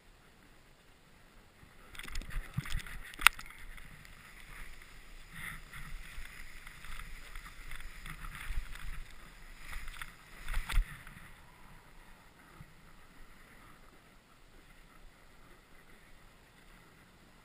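Snowboard sliding through deep powder snow: uneven swishing and scraping of the board and a gloved hand dragging in the snow from about two seconds in until about eleven seconds, with a sharp knock near three seconds, then only a low hiss.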